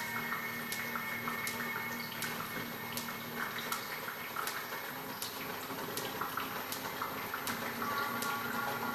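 Live experimental noise performance: a steady water-like noise texture with scattered short high blips and a low hum, cut by a sharp click that repeats about every three-quarters of a second.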